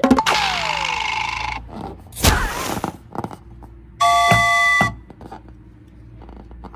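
A string of edited-in sound effects: a hissing fizz with a falling whistle for about a second and a half, a short whoosh about two seconds in, then a steady electronic chime-like tone, several notes held together for about a second, near the middle.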